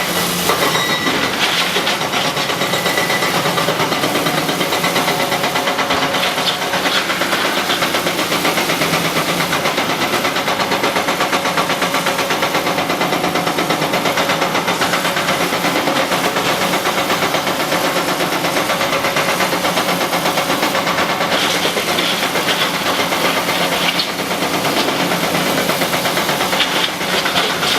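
Cat 321C LCR excavator's diesel engine running steadily and loud, with bursts of clatter now and then as rock is unloaded.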